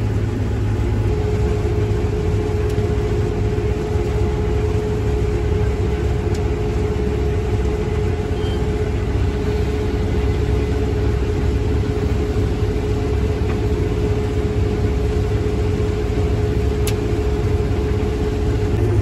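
Combine harvester running under load while cutting soybeans, heard from inside the cab: a steady deep drone with a constant whine over it that comes up about a second in.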